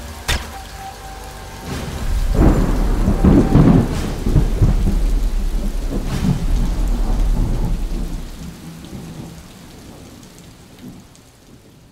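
Thunderstorm sound effect: a few sharp cracks, then a long rolling rumble of thunder that builds about two seconds in and fades away near the end, over steady rain.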